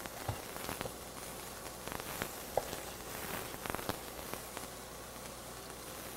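Chef's knife tapping on a wooden cutting board while slicing roasted red pepper into thin strips: irregular light knocks that thin out after about four seconds. Beneath it, a faint steady sizzle of onions sautéing in a stainless steel pan.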